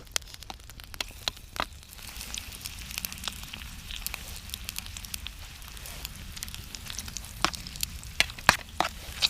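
Food sizzling in a pan over a campfire, the hiss swelling about two seconds in, with sharp crackling pops throughout that come thicker and louder near the end.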